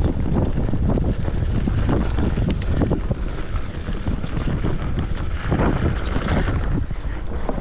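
Wind buffeting the microphone over the rumble and rattle of a mountain bike riding a rough trail, with scattered knocks from the bike over bumps.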